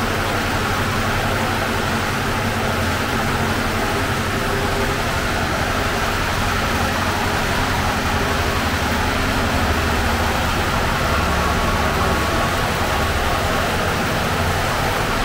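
Steady, unbroken mechanical drone with a deep hum: a bakery's running ventilation fans and oven.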